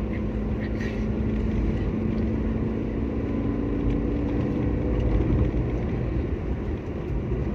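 Steady engine drone and road noise heard from inside a car's cabin while it is driving. The engine hum shifts to a slightly higher note partway through.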